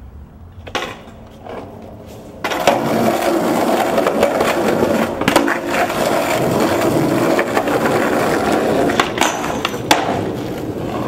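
Skateboard wheels rolling over concrete pavement: a loud, steady rumble that starts suddenly about two and a half seconds in, broken by a few sharp clacks of the board. Before it, only a few faint knocks.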